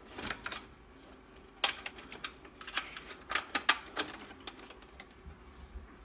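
Irregular light clicks, taps and rustles of SATA cables being pushed and tucked into place inside a desktop PC case, with the sharpest clicks about one and a half seconds in and again near four seconds.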